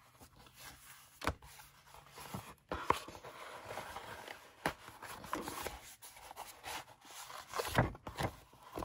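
Handling noise from a small paper notebook and its cover: irregular rustling and scraping with scattered light taps as the notebook is fitted into the cover, the busiest moment near the end.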